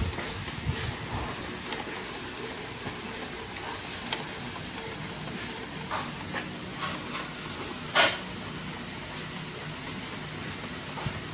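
Canon inkjet printer printing a page: a steady mechanical hum of the print head and paper feed, with scattered clicks and one sharp click about eight seconds in.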